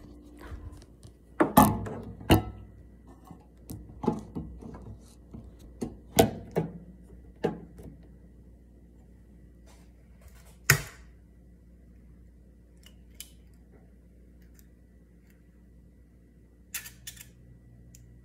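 Scattered knocks and clicks of a phone being handled and propped up, then near the end a quick cluster of taps as an egg is cracked open into a small nonstick frying pan.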